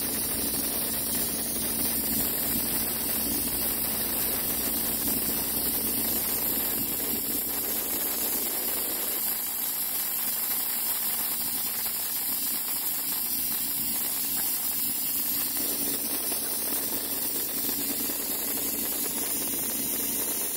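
Diesel engine of a rail grapple truck running steadily, with a constant low hum, while its hydraulic grapple is worked over the bridge deck.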